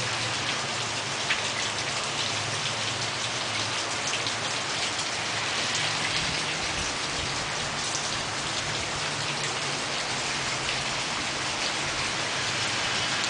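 Steady rain falling and pattering on surfaces, an even hiss with the odd louder drop.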